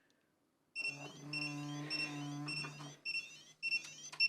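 Alphapoc 602R pager alerting to an incoming POCSAG message: a rapid series of short high beeps, about three a second, with a brief break near three seconds in, over a steady low buzz.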